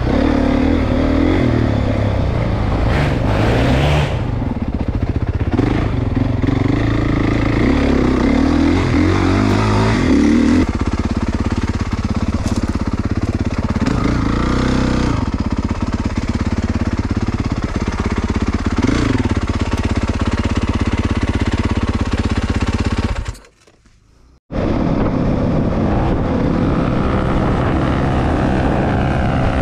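Four-stroke single-cylinder dirt bike engine running on a trail ride, its revs rising and falling as it accelerates and backs off. The sound cuts out for about a second near the end, then resumes.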